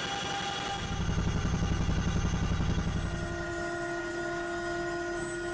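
CH-47 Chinook helicopter in flight, heard from inside the cabin: a steady drone with several steady whining tones, and a rapid low throbbing between about one and three seconds in.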